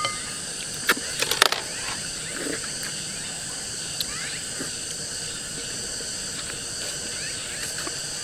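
Steady drone of insects in the background, with a few sharp clicks of chopsticks against porcelain bowls about a second in.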